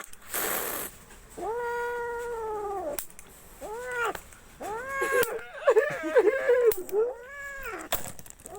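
Angry domestic cat caterwauling: a brief hiss, then one long, drawn-out yowl, followed by several shorter yowls and a run of wavering, broken cries.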